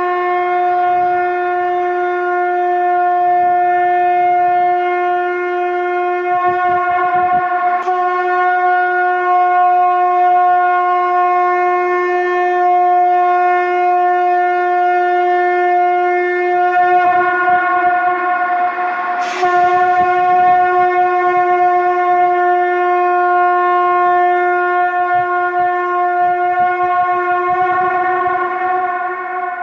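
Shankh (conch shell) blown in long, steady blasts on one held note, with brief breaks about seven and nineteen seconds in where a fresh blast starts.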